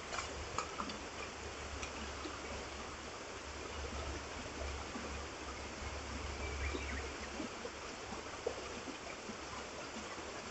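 Steady rush of a mountain river's flowing water, with a few faint clicks in the first second.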